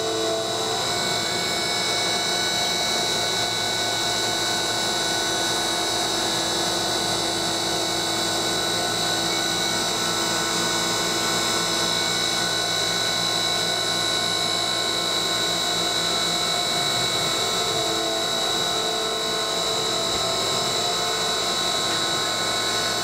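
CNC mill's old BLDC spindle driving an end mill through 6061 aluminum under flood coolant: a steady high whine with the noise of the cut, holding even throughout.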